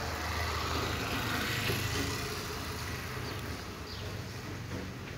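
A steady low buzzing hum, a little louder in the first two seconds.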